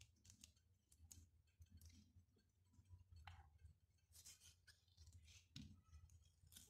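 Near silence: faint, scattered soft clicks and squishes as fingers split soaked dried apricots and pull out the stones, over a low steady hum.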